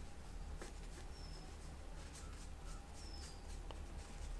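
Quiet room tone with a steady low hum, two short faint high chirps about two seconds apart, and a few soft ticks.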